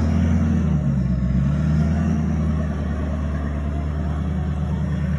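Humvee engine running steadily at low speed as the vehicle crawls up a rocky gravel trail, a continuous low drone whose pitch shifts slightly about a second in.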